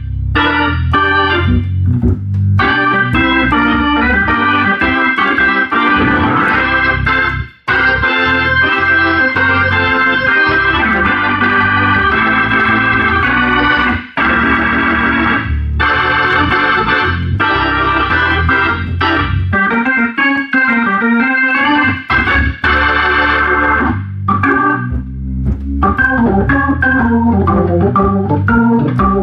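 Hammond B3 tonewheel organ played on both manuals: full sustained chords under a moving upper line, cutting off briefly twice.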